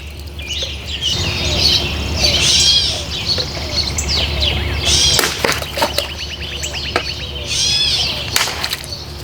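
Wild songbirds chirping and singing, with a fast rattling trill about halfway through. A few sharp knocks stand out midway.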